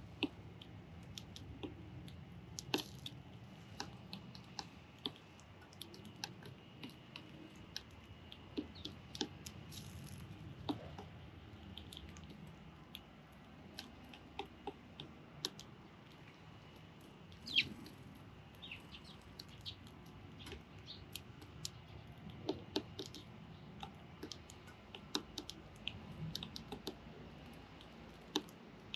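Young sparrows at a feeding spot: scattered sharp clicks and taps, one or two a second at irregular intervals, with an occasional faint chirp.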